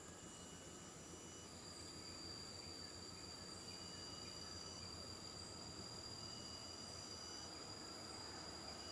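Faint chorus of tropical insects: several steady high-pitched shrilling tones, one coming in about a second and a half in and holding, others switching on and off.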